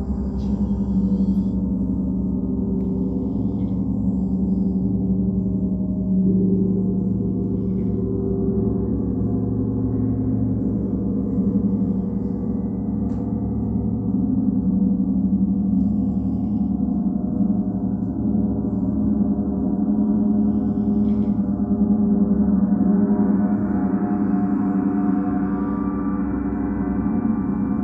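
Large planetary gongs played continuously with padded mallets: a dense, sustained wash of overlapping low ringing tones with no distinct strikes. It swells over the last several seconds as higher overtones build.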